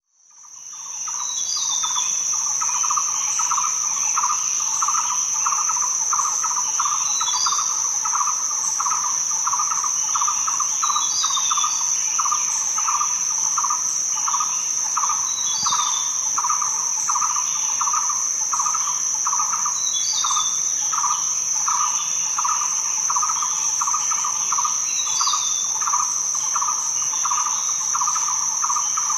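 Insects and birds: a steady high insect drone, a lower pulsing chirr about three times a second, and a short falling bird chirp every few seconds. It fades in over the first second.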